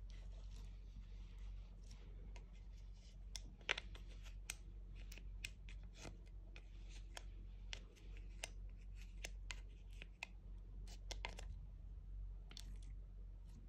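A small plastic spatula scraping and tapping cream makeup out of a plastic palette's pans: soft scrapes and irregular sharp clicks, the loudest about four seconds in, over a steady low hum.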